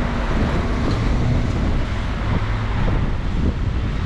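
Wind buffeting the microphone over steady road and traffic noise while riding.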